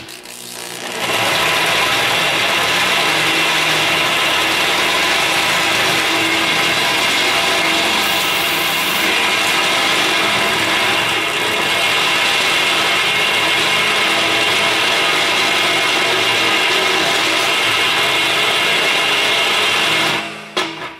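Drill press running and drilling a hole through a steel plate, a steady loud cutting and grinding noise with the motor's hum, starting about a second in and stopping near the end.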